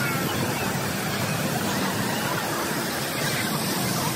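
Water park ambience: a steady rush of splashing water with faint, distant voices of bathers mixed in.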